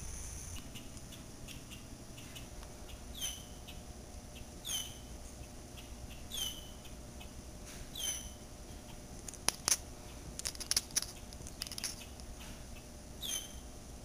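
A bird outside gives short, high whistles that slide downward, five of them at intervals of one to five seconds. In the middle of the stretch a Devon Rex cat at the window chatters back, a burst of rapid sharp clicks that is the loudest part.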